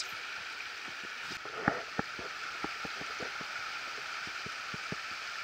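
Steady rush of river rapids, with a string of light, irregular taps from about one and a half seconds in until about five seconds in.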